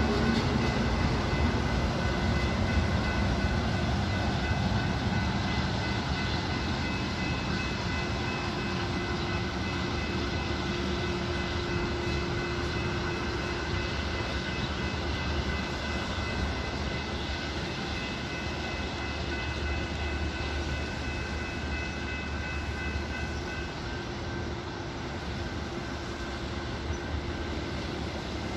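Metra diesel-hauled commuter train running along the line: a steady rail rumble with a few high whining tones over it. The sound gradually fades as the train moves off.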